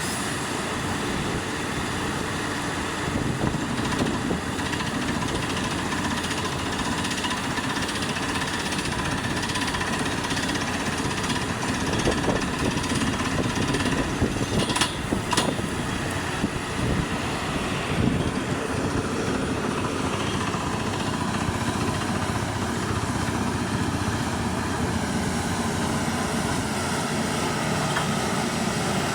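Borehole drilling rig and its 18-bar air compressor running steadily, with a few sharp knocks about halfway through.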